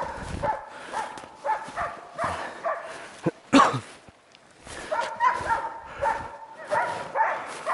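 Hunting laikas barking in a rapid run of sharp barks, about two a second, with a brief pause in the middle. This is the steady baying a laika uses to hold a sable it has treed.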